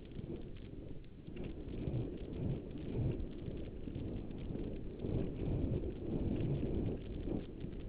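Wind rumbling on a helmet-mounted microphone over the hoofbeats of a racehorse galloping at a breeze, with low thumps recurring through it.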